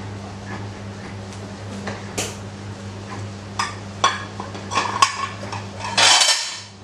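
Metal utensil clinking and scraping against a frying pan while an omelette cooks: a series of sharp clinks, then a longer, louder scrape near the end.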